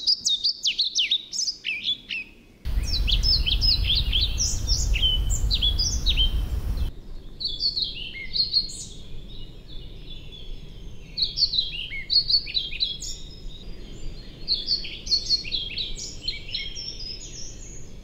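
European pied flycatcher singing: repeated strophes of clear, high notes that jump back and forth between higher and lower pitches, in a variable rhythm with short pauses. For about four seconds, starting near the three-second mark, a loud low rumble and hiss lies under the song.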